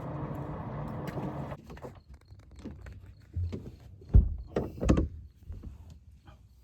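A steady mechanical hum with a low tone cuts off about one and a half seconds in. Scattered knocks and clunks follow, like gear being handled in a boat, the loudest a pair of thumps about four and five seconds in.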